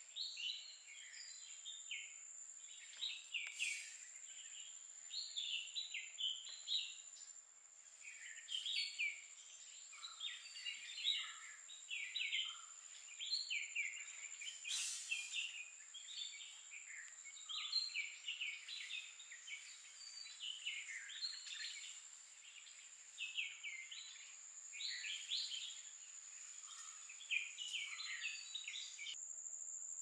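A songbird singing short, quick phrases of high whistled notes every second or two, stopping just before the end, over a steady high-pitched insect drone.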